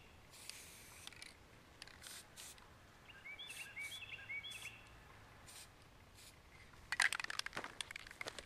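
Krylon aerosol spray-paint can hissing in short bursts, the longest about a second near the start. A bird chirps in a quick series about three seconds in, and footsteps crunch on dry leaves near the end, the loudest sound.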